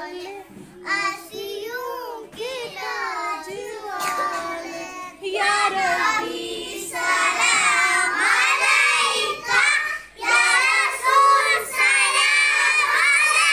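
A group of young children singing together in unison, a few voices at first, then louder and fuller from about five seconds in as the whole class joins.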